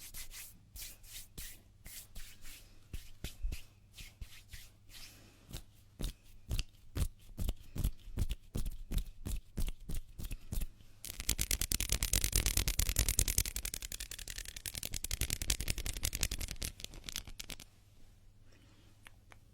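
Hands rubbing together close to a microphone as an ASMR trigger. Quick separate swishing strokes, about three a second, give way about eleven seconds in to a louder stretch of fast continuous rubbing. This stops a couple of seconds before the end.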